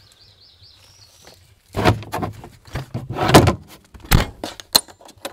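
A latched storage box at the back of a van being opened: a couple of clattering, scraping handling noises, then a sharp click about four seconds in and a few lighter clicks as the latch and lid are worked.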